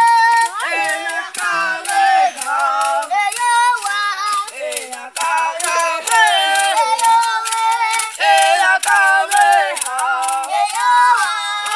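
Boys' voices chanting a Toré song together, high and continuous with short breaks between phrases, over a steady patter of sharp clicks.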